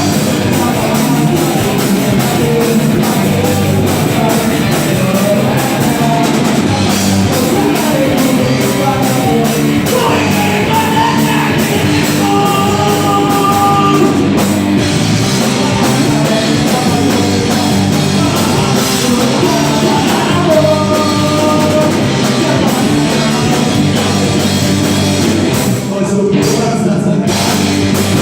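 Loud rock music from a band playing live, with a drum kit and singing.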